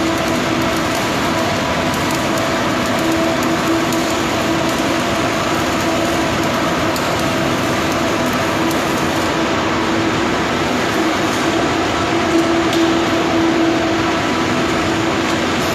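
Steady loud rushing noise with a constant droning hum from work machinery inside a large steel tank under weld repair, running evenly throughout.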